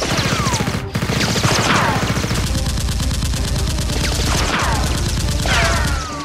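Rapid automatic gunfire sound effect, a continuous stream of shots with a brief break about a second in, mixed with several falling whistling whines like passing or ricocheting bullets.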